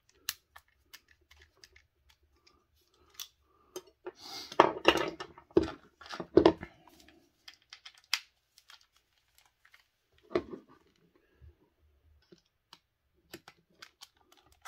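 Small parts of an RC car transmission being handled on a workbench: scattered light clicks, with a louder run of clattering knocks about four to six and a half seconds in and one more knock around ten seconds in.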